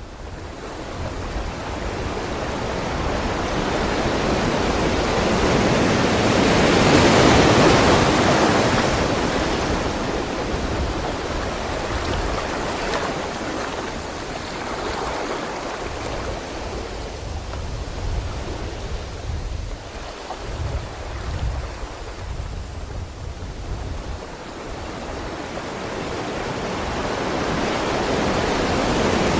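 A rushing roar of wind or moving water. It swells to its loudest about seven seconds in, eases off, then builds again near the end.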